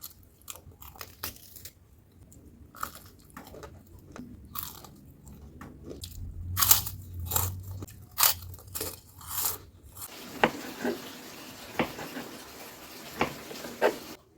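Close-miked crunching bites and chewing of crispy fried food, a quick run of sharp crunches. From about ten seconds in, a steady hiss sits under a few spaced crunches.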